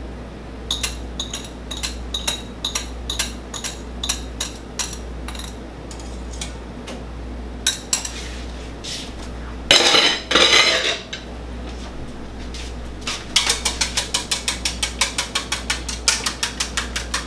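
A wire whisk against a stainless steel bowl and a glass bowl, mixing eggs, milk and melted butter for pancake batter. It gives spaced metallic taps at first, then a louder scraping about ten seconds in, then a rapid even clicking of about five or six strokes a second from about thirteen seconds in, over a low steady hum.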